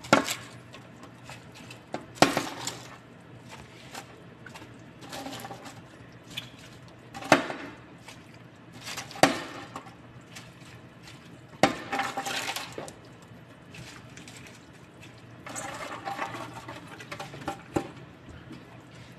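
Torn cabbage leaves being tipped and tossed from a bowl into an aluminium pot of broth: soft splashing, with about six sharp clinks against the pot spread through.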